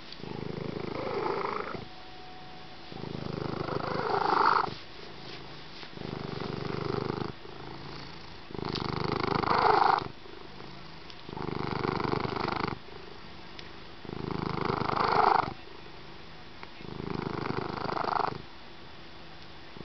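Slow, rhythmic rasping breaths close to the microphone. Each is about a second and a half long with a short pause between. Every other breath swells to a louder peak at its end, so the in-and-out cycle repeats about every five seconds.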